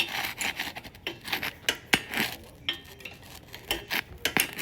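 Metal hand tools clinking and scraping against the metal parts of a mini chopper, in irregular sharp clicks.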